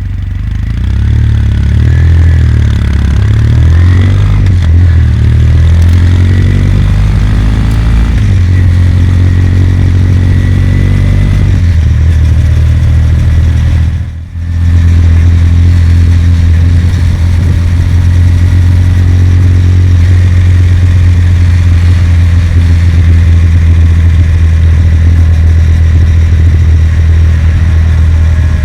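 Kawasaki W800's air-cooled parallel-twin engine under way, rising and falling in pitch through the first twelve seconds, dipping briefly about fourteen seconds in, then running steadily at cruise.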